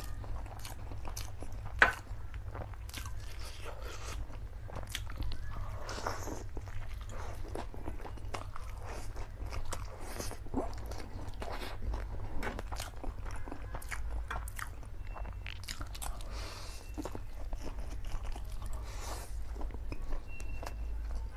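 Close-miked eating of black bean instant noodles from a fork: chewing, slurping of noodle strands and wet mouth clicks, with one sharp click about two seconds in, over a steady low hum.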